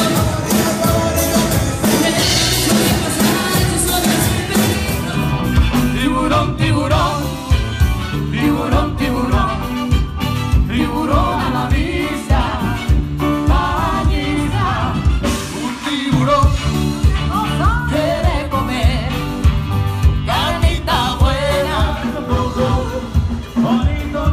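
Upbeat band music: a lead vocal sung over drums, bass and backing instruments with a steady beat.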